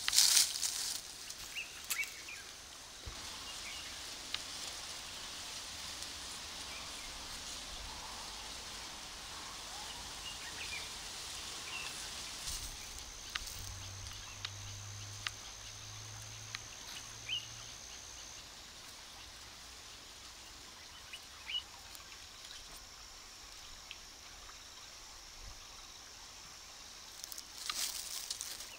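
Quiet outdoor ambience: a steady high hiss with scattered faint bird chirps and, for a few seconds midway, a thin steady high tone. A brief rustle of cloth being spread opens it, and a few light clicks and rustles of food being handled break it, with more rustling near the end.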